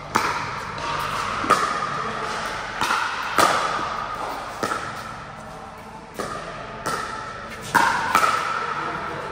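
Pickleball rally: paddles hitting the hollow plastic ball, about nine sharp pops at uneven intervals of roughly a second, each ringing briefly in a large hall.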